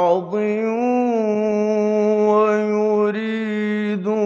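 Male voice reciting the Quran in a melodic, chanted style, drawing out the last word of 'wa nakfuru bi-ba'd' as one long held note of about four seconds.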